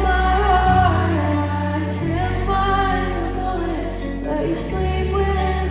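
A woman singing a slow melody with a live band, over held bass notes that change every second or two.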